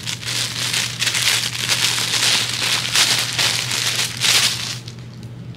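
Plastic packaging bag crinkling and rustling in uneven bursts as a pillowcase is pulled out of it, dying down near the end, over a steady low hum.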